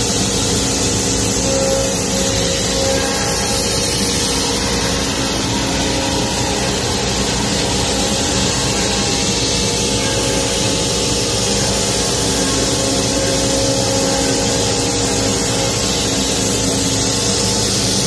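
CNC wood router (Routmac YL-12242R+B+U-12) running and routing a wooden panel: a loud, steady machine noise with a few held pitches that swell and ease slightly as the head works across the board.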